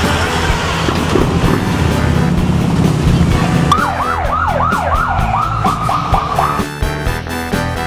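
Truck engine running amid street noise; about halfway in, music starts and a siren yelps in quick rising-and-falling sweeps, about three a second, for about three seconds.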